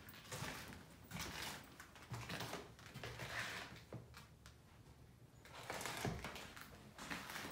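Faint footsteps and rustling, with a few soft knocks, from someone moving slowly around a room.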